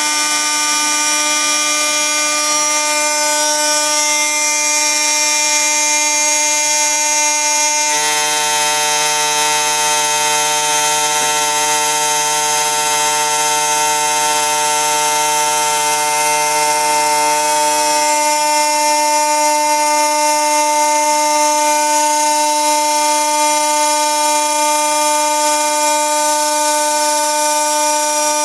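CNC glass slotting and milling machine running, with a steady, loud whine of several held tones. A second, lower hum joins about eight seconds in and stops about ten seconds later.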